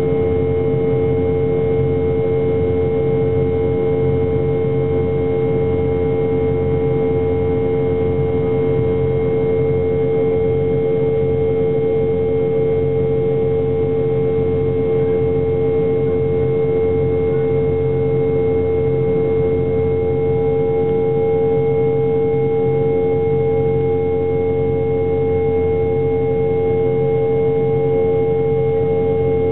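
Cabin drone of a Boeing 717's rear-mounted Rolls-Royce BR715 turbofans during the climb after takeoff: a steady, unbroken hum with a strong held tone over a low rumble.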